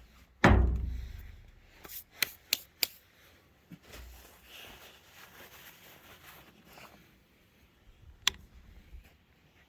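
Handling noise from a small chainsaw being readied to start, its engine not yet running: a heavy thump about half a second in, then three quick sharp clicks and a few softer knocks, with one more click near the end.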